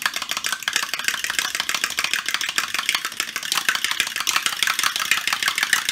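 Two raw eggs being beaten with a metal utensil in a measuring cup: a fast, steady run of clicks as the utensil strikes the cup.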